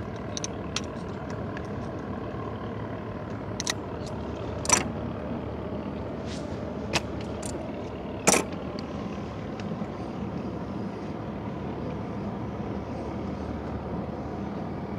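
Small boat engine running steadily at idle, with a few sharp knocks and clicks in the first half; the loudest knock comes a little past the middle.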